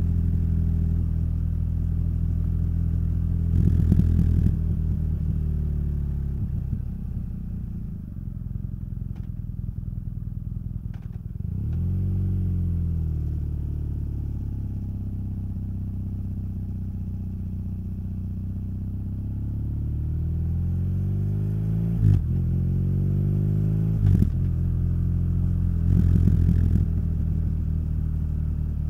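Motorcycle engine and exhaust on the move: running steadily, easing off about a quarter of the way in, then picking up again with a pitch that rises and settles, and rising again later, with a few short knocks near the end.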